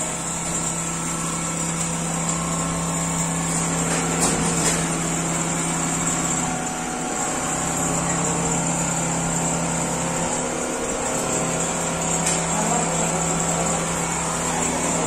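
Steady mechanical hum of a computerized single-head quilting machine running, with a low steady tone that drops out briefly about ten seconds in.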